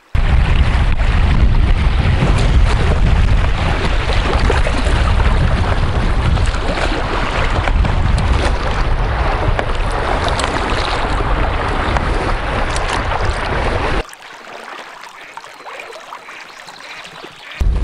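Wind buffeting the microphone over river water rushing past an inflatable boat. About fourteen seconds in it cuts to a quieter rippling river current, and the loud wind noise returns near the end.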